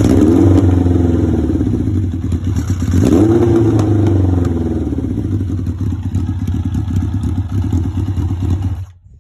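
1980 Honda CB750's inline-four engine running during a carburettor sync, its pitch rising and falling back twice, once near the start and again about three seconds in. The sound cuts off suddenly near the end.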